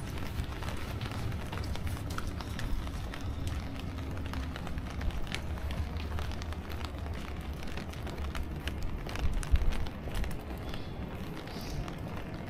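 Outdoor street ambience recorded on foot: a steady low rumble with scattered light taps and clicks, and a louder thump about nine seconds in.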